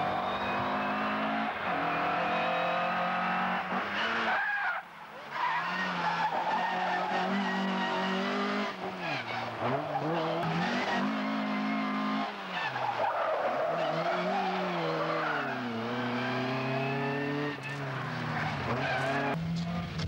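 Mk1 Ford Escort rally car driven flat out: its engine revs hard, the pitch falling as the driver lifts or brakes and climbing again under acceleration, several times over, while the tyres squeal through the slides. The sound breaks off briefly about five seconds in.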